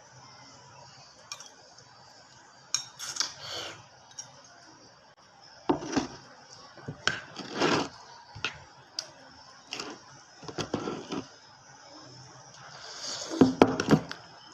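Spoon and fork clinking and scraping against a plate in several short clusters, the loudest near the end, as food is served and eaten.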